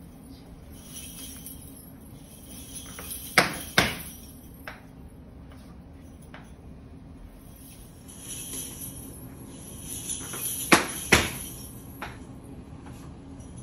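Flamenco dancer's sharp percussive strikes, in two pairs about half a second apart, one a few seconds in and one near the end, with a few lighter taps between, over a faint steady hum.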